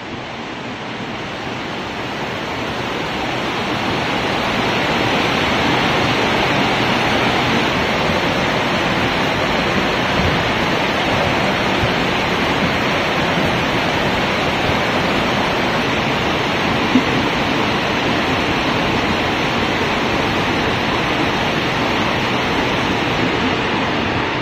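Steady rain falling: a dense, even hiss of drops that swells over the first few seconds and then holds steady.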